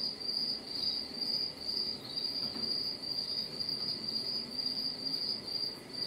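A cricket chirping steadily: a high-pitched, evenly pulsed trill about twice a second.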